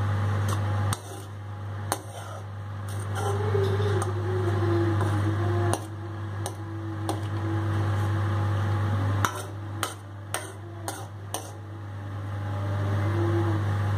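A metal spoon stirring in a steel pot of simmering dry fish and clinking against its sides, with a quick run of clinks a little past the middle, over a steady low hum.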